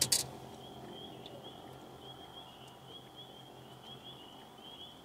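A faint chorus of small animals calling outdoors: short high chirps, several a second, overlapping without a fixed rhythm. There is a brief rattle of clicks at the very start.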